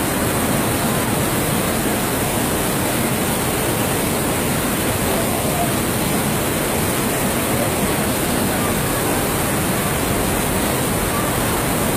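Steady rushing of a fast torrent of floodwater pouring down a street, an even noise with no breaks. Faint voices are just audible under it.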